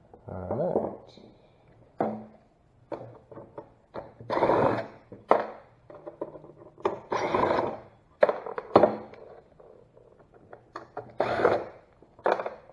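Hand work on a car dash assembly: several short scraping and rubbing sounds of about a second each, among scattered clicks and knocks of tools and parts.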